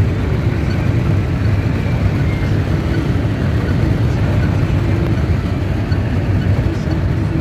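Steady low road and engine rumble heard from inside the cabin of a moving vehicle.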